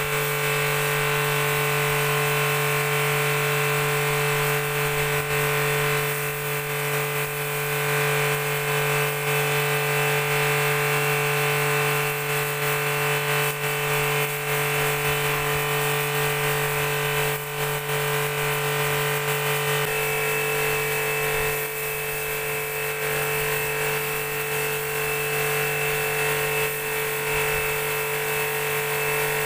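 Pressure washer running steadily: a constant motor-and-pump hum with the hiss of the water jet on a concrete floor, a higher whine joining about two-thirds of the way through.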